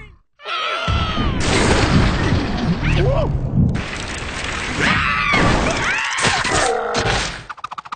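Cartoon soundtrack: squeaky, gliding character voices mixed with slapstick crash and impact sound effects, with a long rumbling crash in the middle.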